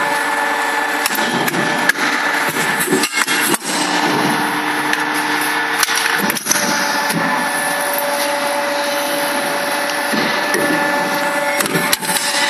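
Hydraulic square-tube bending machine running, with a steady hum from its hydraulic pump. Several sharp knocks land at uneven moments as the clamps and bend die work a square steel tube.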